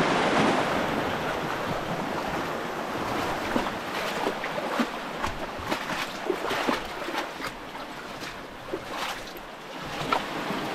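Sea waves washing onto the shore: a steady rush with many small crackling splashes.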